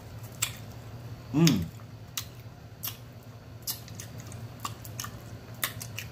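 Close-miked chewing and lip-smacking on chicken wings: scattered wet mouth clicks. About a second and a half in comes one short voiced 'mm' that rises and falls in pitch.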